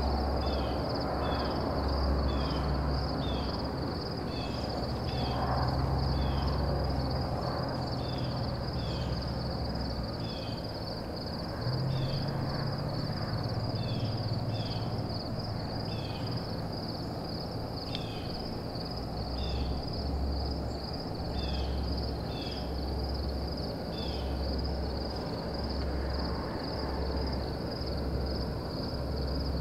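Evening insect chorus: a steady, fast-pulsing high trill with short chirps repeating over it, and a low rumble that comes and goes underneath.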